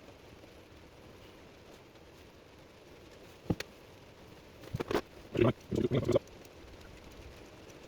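A single sharp click, then about a second later a quick cluster of short, low vocal sounds.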